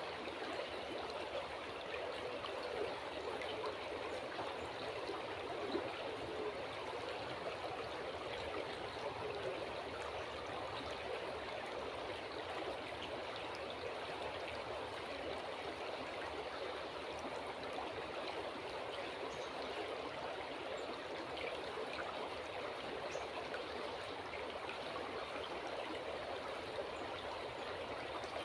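River water flowing steadily with a continuous babbling rush, with a few faint, brief high chirps from birds partway through.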